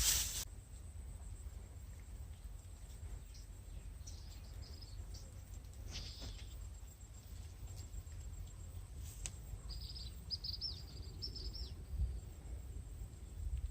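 Outdoor ambience: a steady low rumble with a few short high chirps, a quick run of them about ten to twelve seconds in, from a small bird.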